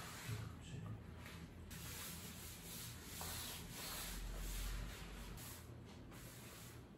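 A rag rubbing over thin paper wallpaper, wiping bleach off the wall.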